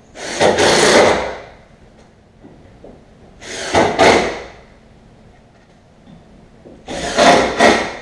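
Cordless drill/driver driving screws up into the underside of a walnut bar top, in three bursts of about a second each.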